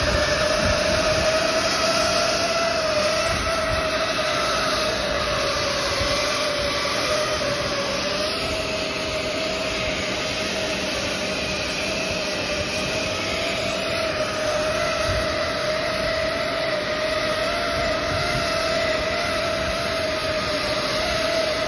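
Hot air seam welding machine running while it welds PVC duct fabric: a steady, slightly wavering whine over a constant rush of air.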